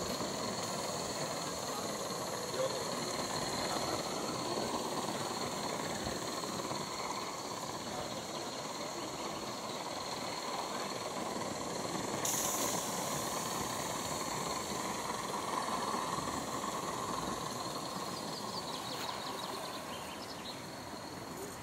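Gauge 1 live-steam model locomotive running with a train of coaches: a steady rapid chuffing and hiss of steam. About twelve seconds in there is a brief louder hiss.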